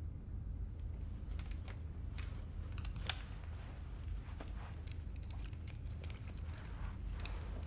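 Steady low rumble of a quiet room, with faint scattered clicks and rustles starting about a second in as a man slowly takes off his wire-rimmed glasses.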